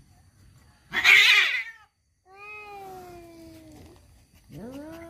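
Tomcats caterwauling in a fight standoff: a short, loud, harsh cry about a second in, then a long low yowl that slowly falls in pitch, and another drawn-out yowl rising and held near the end.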